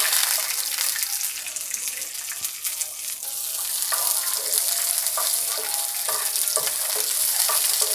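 Hot oil sizzling as whole green karonda (karamda) berries are tipped into a non-stick frying pan with mustard and cumin seeds and stirred with a wooden spatula, with scattered crackles and pops.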